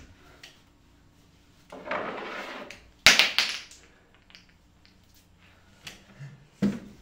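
A performer moving around a wooden table and chairs: a rustle lasting about a second, then a single sharp knock or slap, the loudest sound, and a few soft thumps near the end.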